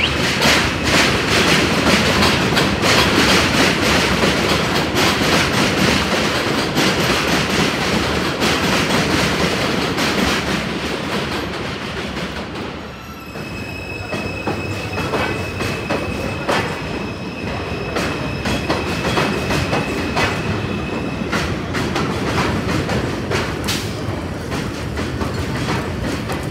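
Subway train running overhead on a steel elevated structure, with loud rumbling and a rapid clatter of wheels over rail joints. Just after halfway the noise briefly eases, then a steady high-pitched whine sits over the clatter for several seconds.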